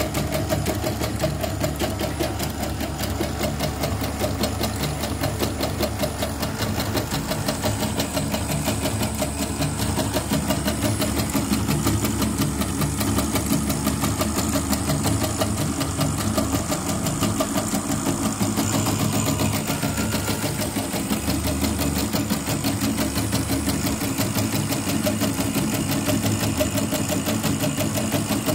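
CNY E900 portable embroidery machine running a stitching test, a rapid, steady mechanical chatter from the needle drive. The mechanism still sounds dry all over, and the technician means to trace where the noises come from.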